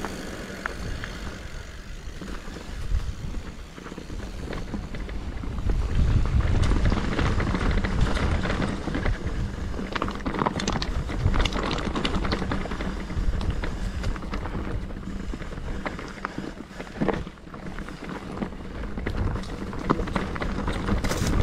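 Mountain bike moving along a trail: wind buffeting the microphone over a steady low rumble, with scattered clicks and rattles from the bike.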